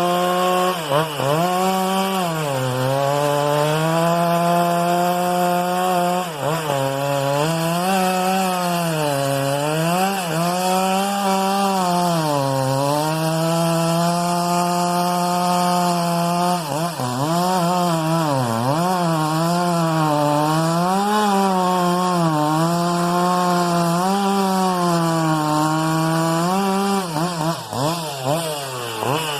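Husqvarna 395XP two-stroke chainsaw running at high revs and cutting wood. Its pitch sags again and again as the chain bites into the cut and climbs back each time it frees up.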